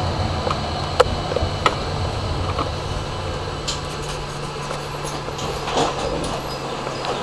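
Tram running along its track, heard from inside the cab: a steady low hum from the drive with light rattles, and a couple of sharp clicks in the first two seconds.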